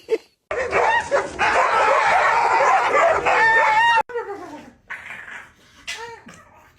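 Dog barking, yipping and whining in a dense run of cries, ending in a high held whine that cuts off suddenly. A few shorter, fainter yips and whimpers follow.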